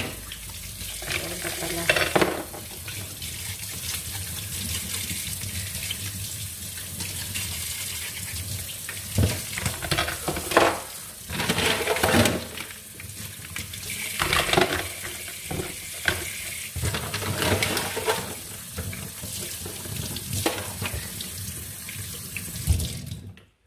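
Tap water running into a stainless-steel sink as mussels are rinsed, with frequent clicks and knocks of the shells against each other and the sink. The water cuts off abruptly near the end.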